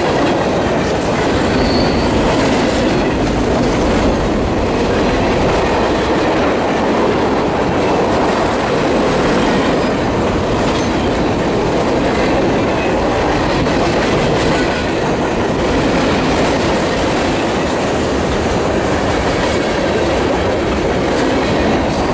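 Freight train cars (covered hoppers and boxcars) rolling past close by at steady speed: a loud, continuous rumble and rattle of steel wheels on the rails.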